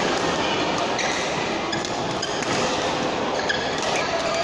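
Badminton hall din: a steady wash of many distant voices and court noise, with short squeaks of shoes on the court mats and a sharp racket hit on a shuttlecock about three and a half seconds in.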